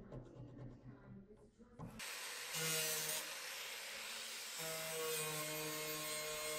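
Pneumatic cut-off tool with a 3.5-inch disc cutting out rusted sill steel. It is quieter for the first two seconds, then a loud hiss of air and the disc biting into the metal starts, with a steady whine over it.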